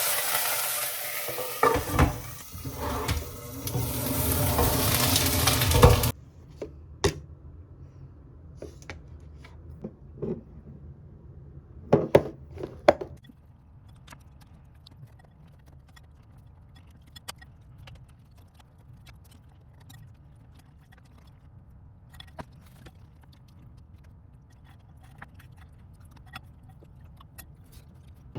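Kitchen cooking sounds. For about six seconds there is a loud steady hiss with utensils knocking against cookware, and it cuts off abruptly. Then come quiet, scattered clinks and taps of dishes and cutlery, with a few louder knocks about halfway through.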